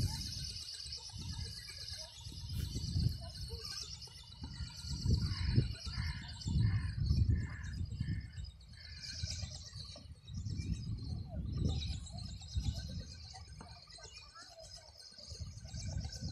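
Gusts of wind buffeting the microphone in uneven surges, with birds chirping in the background.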